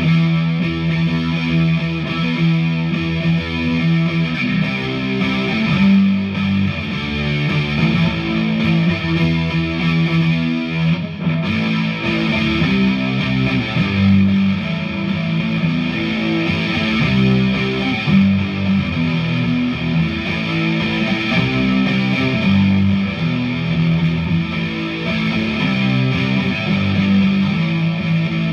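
Electric guitar, a Vintage V100 Les Paul-style, played through a distortion patch on a DigiTech GNX3 multi-effects pedal into a Hughes & Kettner Attax amp: heavily distorted riffing with chugging low notes, with a short break about eleven seconds in.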